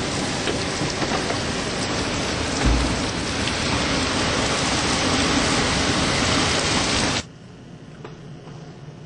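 Hurricane wind and driving rain make a loud, dense rush of noise, with a single low thump about a third of the way in. About seven seconds in it cuts off abruptly to a much quieter rush of wind and rain.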